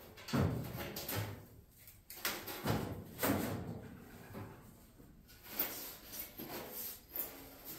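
Clunks, knocks and scrapes of the chopped sheet-steel roof of a 1953 Chevy truck cab being shifted about on the cab. There are several sudden hits about a second apart, loudest about half a second in and again around three seconds in.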